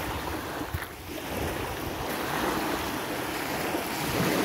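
Small lake waves washing onto a sand beach, a steady surf wash.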